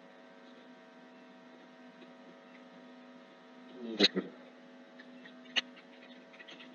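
Steady electrical mains hum, broken by a few short sharp clicks about four seconds in and one more about a second and a half later, likely computer mouse clicks.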